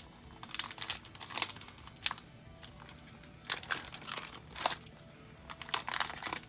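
Foil wrapper of a Pokémon card booster pack crinkling and tearing as it is opened, in an irregular run of crackles.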